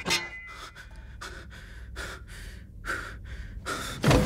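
A man breathing hard in short, quick breaths about every half second, then a loud thud near the end.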